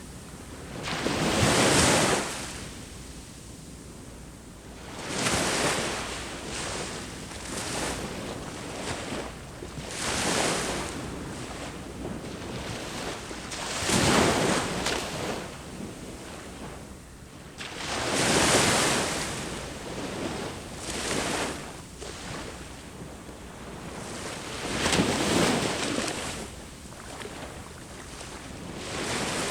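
Ocean waves breaking on the shore. Each wave swells into a hissing crash and then drains back, about every four seconds, with a few smaller breaks in between. Light wind runs over the microphone.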